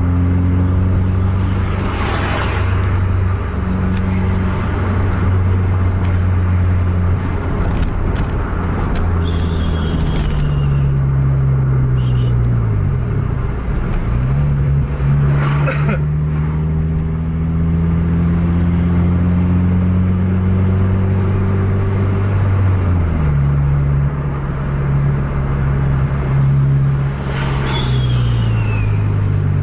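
A car engine heard from inside the cabin, pulling steadily. Its note climbs slowly and drops back a few times as the driver works the throttle and gears. Passing traffic whooshes by three times.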